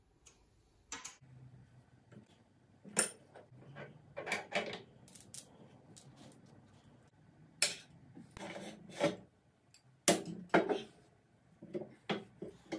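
Metal parts of a Harbor Freight mini mill (Sieg X2) clinking and clanking as it is taken apart: bolts, a shaft and castings handled and set down on a steel bench. Irregular sharp knocks and clinks, a dozen or so, with the loudest about three seconds in and again around ten seconds.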